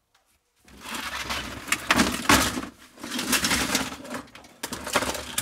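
Electronic circuit boards sliding and clattering out of a tipped plastic crate onto a workbench: a jumble of knocks and scrapes that starts about half a second in, with several sharper clacks.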